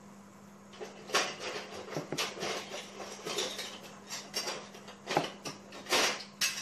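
Hands mixing flour and water into a crumbly dough in a bowl: irregular squishes, rustles and knocks of fingers against the bowl, starting about a second in.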